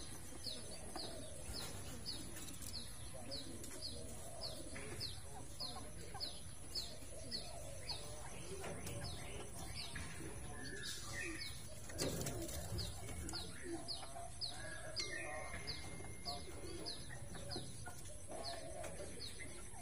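A short, high chirp falling in pitch, repeated evenly about twice a second, over a background of chickens clucking. There is a louder rustle or knock about twelve seconds in.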